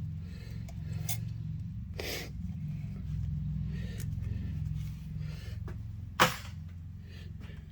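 Steady low hum with a few scattered clicks and knocks of tools being handled. The sharpest knock comes about six seconds in.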